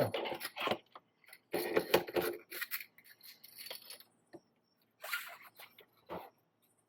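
Light clicks, clinks and rustles from small parts and wires being handled while a wire connector is pushed home by hand, with a short low knock near the end.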